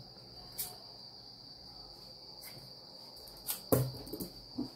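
Faint handling of yarn and scissors: a few soft clicks and a brief knock about three and a half seconds in. Under it runs a steady high-pitched tone, like an insect trill.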